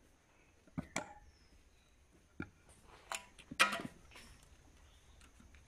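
Scattered knocks and taps of a wooden tamper packing wet sheep-manure mix into a metal brick mould, a handful of single strikes with the loudest cluster about two-thirds of the way through.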